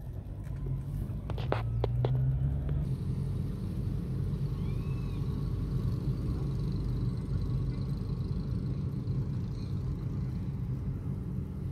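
A car's engine and road noise heard inside the cabin while driving slowly: a steady low rumble whose engine note swells briefly about a second in. There are a couple of sharp clicks around the same time.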